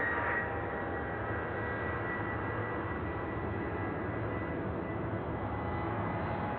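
Jet engines of a Boeing 737-700 (CFM56-7B turbofans) running with a steady high whine over a low rumble, in the course of its takeoff.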